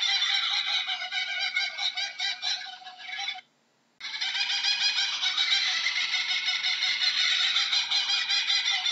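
Kookaburras giving their rapid, cackling laughing call, a dense stream of repeated notes. It cuts out briefly about three and a half seconds in, then carries on.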